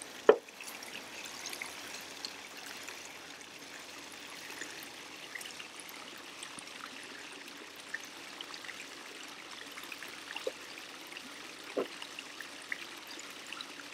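Steady trickle of water spilling from a raised spa into a swimming pool. A single sharp knock sounds just after the start, with a few faint clicks later on.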